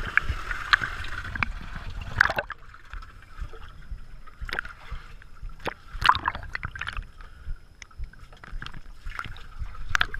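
River water sloshing and gurgling around a camera held at the waterline under a pontoon boat, lapping against the boat's plastic 55-gallon drums, with irregular splashes every second or two.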